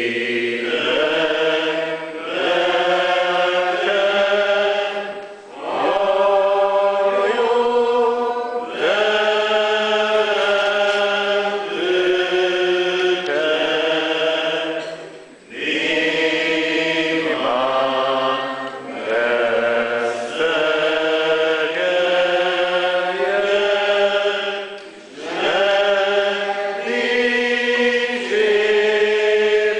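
Reformed church congregation singing a hymn together in slow, long-held notes, with a short break between lines.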